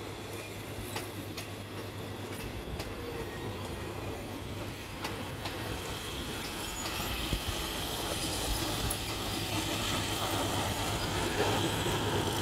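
Passenger coaches of a State Railway of Thailand train rolling slowly over the station tracks, wheels clicking at the rail joints, the rumble growing louder toward the end.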